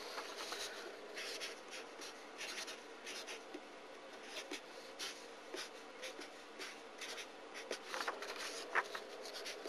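Marker pen writing on paper in many short, scratchy strokes as figures and brackets are written out.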